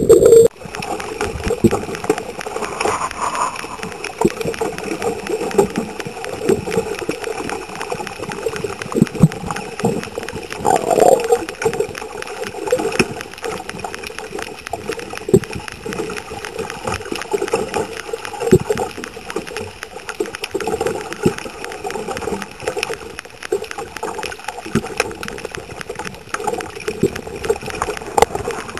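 Underwater sound on a diving camera: a continuous crackle of many small clicks with gurgling water and a faint steady hum.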